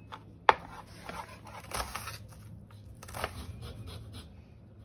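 Lemon rind grated on a fine rasp grater whose tip rests on a plastic cutting board: a few scraping strokes, after a sharp knock about half a second in.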